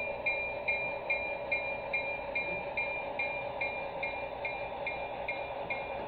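Model E8 diesel locomotive's bell ringing steadily, about twice a second, over a steady running noise as the train approaches.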